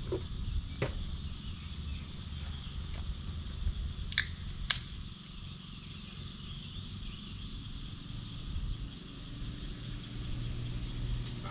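Campsite outdoor ambience: a steady low rumble under a steady high hum, with a few short high chirps and sharp clicks, two of them about half a second apart around four seconds in.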